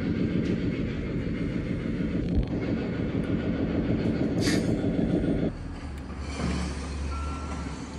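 Construction-site machinery noise: a dense, heavy rumbling clatter for about five and a half seconds, then a quieter, steady low diesel engine hum from the excavator and backhoe at a demolition site. This is the construction noise that makes working from home impossible.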